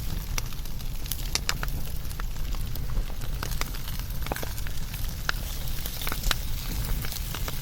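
Wood fire crackling, with irregular sharp pops over a low, steady rumble of the flames.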